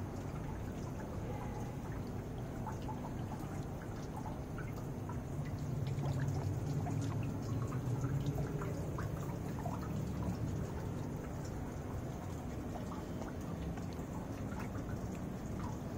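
Water trickling and dripping steadily into a small fish pond, with scattered small splashes and a low rumble underneath that grows louder for a few seconds midway.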